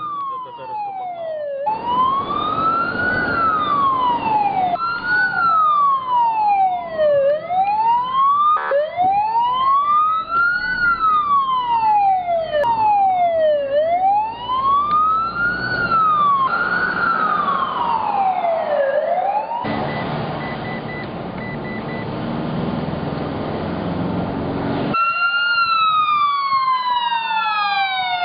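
Fire-service vehicle sirens wailing, rising and falling slowly about every four seconds over engine and road noise, with the sound breaking off and restarting every few seconds. Near the end two sirens overlap, gliding faster.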